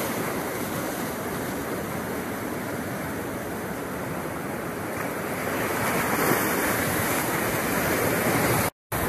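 Ocean surf washing and breaking over shoreline rocks: a steady rush of water that swells louder in the second half and breaks off for an instant near the end.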